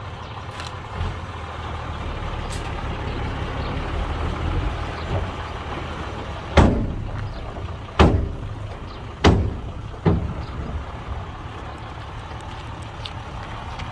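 Heavy diesel machinery running with a steady low rumble, broken by four loud bangs a second or so apart, each ringing briefly.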